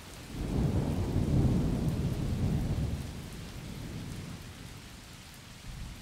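A low roll of thunder that swells about half a second in and fades away over the next few seconds, over the steady hiss of falling rain.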